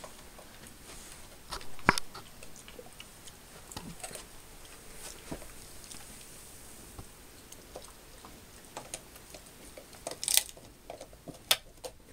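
Pit bull chewing and gnawing a chew held between its front paws: scattered small clicks and crunches, with a few sharper ones about two seconds in and twice near the end.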